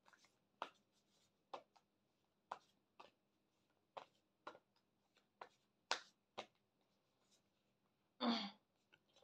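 A tarot card deck shuffled by hand: a run of light, irregular snaps and clicks as the cards slap together, roughly one or two a second, followed by a brief louder sound about eight seconds in.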